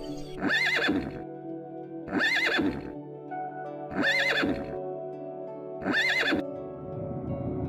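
A horse whinnying four times, about two seconds apart, each call the same short quavering neigh, over steady background music.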